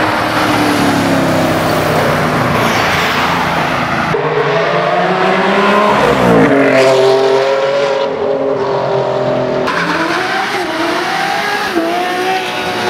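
Lamborghini Huracán's V10 engine revving hard under acceleration, its pitch climbing and falling, with a quick drop in pitch about six seconds in. The sound changes abruptly about four and ten seconds in, as separate clips are cut together.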